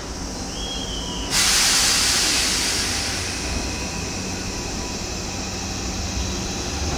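Electric commuter train releasing compressed air: a sudden loud hiss starts about a second in and slowly tapers off, over the train's low rumble. A brief high squeal comes just before the hiss.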